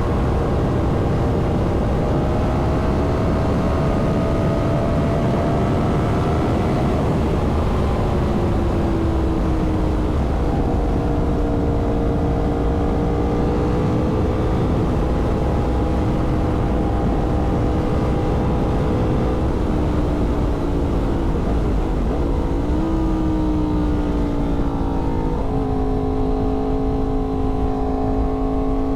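Yamaha MT-10's crossplane inline-four engine running under way, with heavy wind rush on the microphone. The engine note holds fairly steady, then drops in pitch at a gear change about seven seconds in and again near the end.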